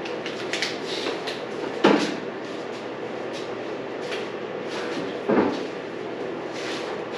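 Hand tools and bolts being worked on a dirt bike's battery mount: light scattered clicks and clinks, with two louder knocks about two seconds and five seconds in.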